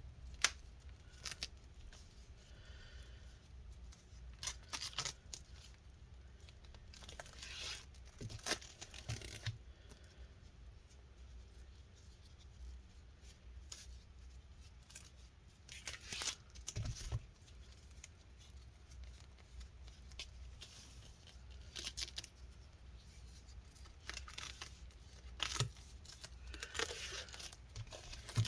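Wrapping and tape being torn and peeled off a packaged replacement laptop screen, in irregular short rips and crinkles with pauses between.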